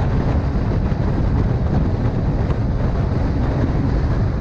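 Steady wind rush buffeting the microphone of a camera on a vehicle moving at highway speed, with road and engine noise underneath.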